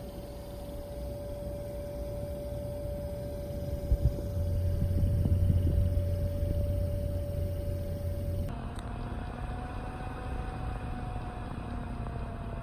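Two 120 mm PC fans spinning at high speed, one after the other: a Cooler Master Air Balance 120 and a Corsair ML120 Pro magnetic-levitation fan, each pulling air through a CPU cooler's radiator. The first gives a steady whine with air noise, plus a double knock about 4 s in and a low hum after it. About 8.5 s in, the sound cuts to the second fan, whose whine is a little higher and rises and falls slightly.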